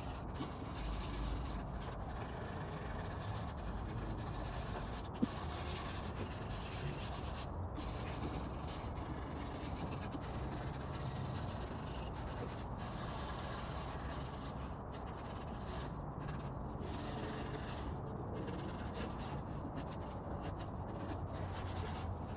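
Sandpaper rubbing back and forth on a wooden cabinet, a steady scratchy noise with brief breaks between strokes and a single sharp tap about five seconds in.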